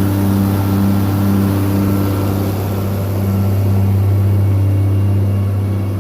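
Heavy engine running steadily at constant speed, with a low rhythmic pulse about twice a second, as a TMR feed mixer runs a batch of cattle feed.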